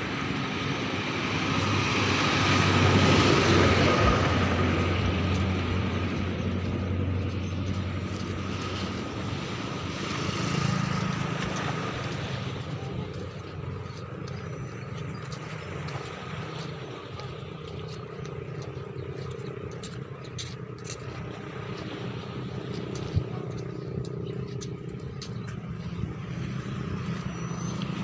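Road traffic: engines of passing vehicles swelling and fading, the loudest pass about three seconds in and another around ten seconds in, with a quieter steady hum between.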